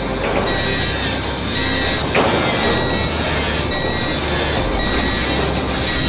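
3M Versaflo TR-600 powered air-purifying respirator's low-airflow alarm beeping about once a second, warning that the airflow to the headtop has dropped too low. Under it runs the steady noise of an angle grinder grinding a steel beam.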